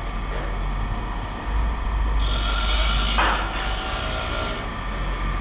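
Rasping scrape on a hard object lasting a couple of seconds in the middle, with one harder stroke, over a steady low hum.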